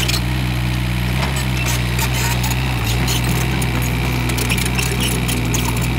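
Komatsu PC58 mini excavator's diesel engine running steadily under hydraulic load as the boom lifts and the upper body swings. The engine note shifts about three seconds in, with scattered clicks over it.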